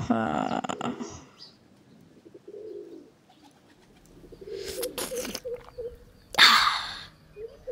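Pigeon cooing, a low wavering call that rises and falls in quick pulses, heard twice, the second time near the end. A short voiced human sound comes at the start, and a loud breathy burst of a person's voice comes about six and a half seconds in.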